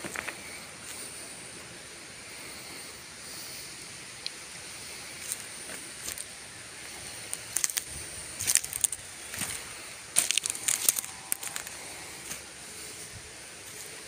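Footsteps crunching on dry leaf litter and twigs: scattered crackles that thicken into a dense run of snaps past the middle, over a faint steady high hiss.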